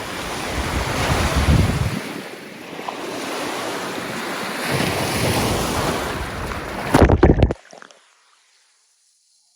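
Lake Michigan waves washing in at the shore, with wind buffeting the microphone in deep gusts. The sound cuts off abruptly about seven and a half seconds in, leaving near silence.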